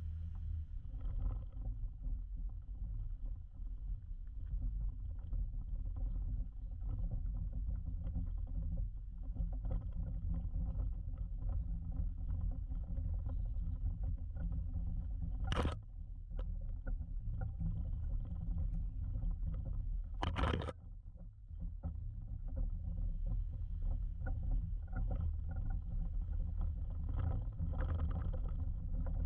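2011 Jeep Wrangler Rubicon's 3.8-litre V6 running low and steady as the Jeep crawls a rough off-road trail, with frequent small clicks and knocks. Two sharp bangs come about 15 and 20 seconds in.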